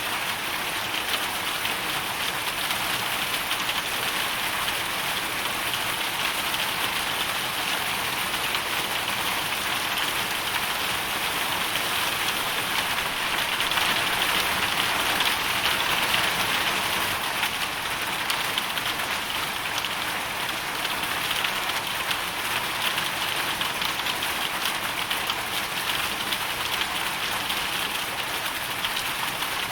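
Hail storm: a dense, steady patter of hailstones hitting a surface, swelling slightly about halfway through.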